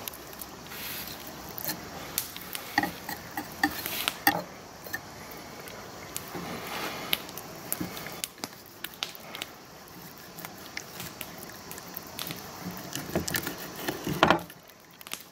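A kitchen knife slicing and scraping through a raw trout fillet on a wooden cutting board, with scattered light ticks and taps of the blade on the board and a louder knock near the end.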